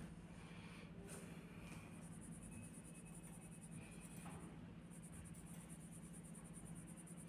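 Faint scratching of a coloured pencil shading a drawing on paper, over a low steady hum.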